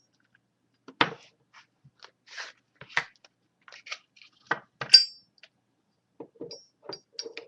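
Metal Zippo lighters being handled: a string of irregular knocks and clinks. The loudest, about five seconds in, leaves a brief bright metallic ring.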